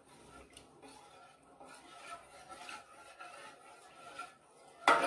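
Steel ladle stirring coconut milk in a stainless steel pot: faint, soft scraping, then one sharp metallic clink of the ladle against the pot near the end.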